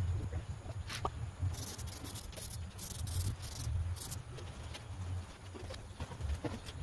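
Hands rubbing and smoothing headliner fabric down onto the headliner board, a string of short scratchy swishes in the middle, over a steady low rumble.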